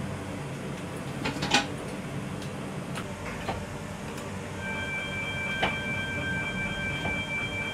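Tram driver's cab with a steady low running hum and a few sharp clicks of the controls. About halfway in, a steady electronic beep starts as console buttons are pressed and holds for about three seconds.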